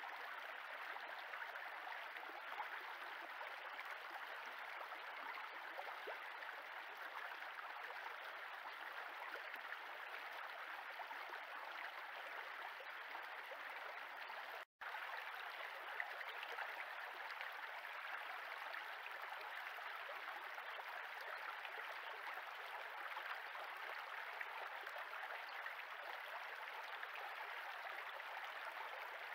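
Shallow stream running steadily over a stony bed, an even burble of flowing water. The sound drops out for a moment about halfway through.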